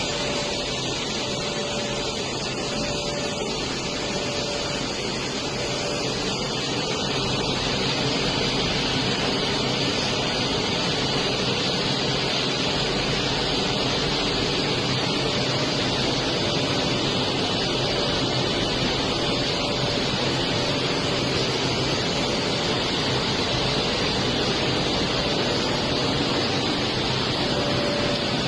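Drum-type vial glass bottle washing machine running, a steady dense hiss with a faint steady tone underneath.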